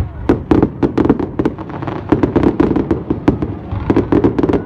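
Fireworks display going off: a dense, unbroken run of sharp bangs and crackles, several a second.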